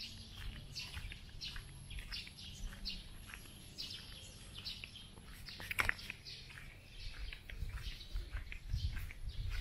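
Small birds chirping, many short overlapping chirps, with one sharp click a little before six seconds in and a low rumble underneath, heavier near the end.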